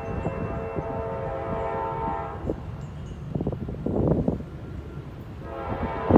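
Norfolk Southern diesel locomotive air horn sounding a steady chord of several tones as the intermodal train approaches. One blast ends about two and a half seconds in and another begins near the end.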